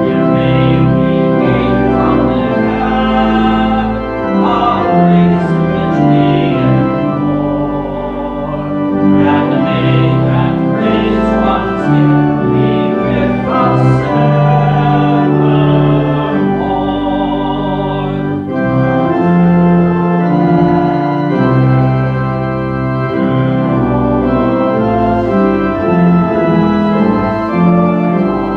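Church organ playing a hymn: sustained chords that move every second or two over a deep bass line.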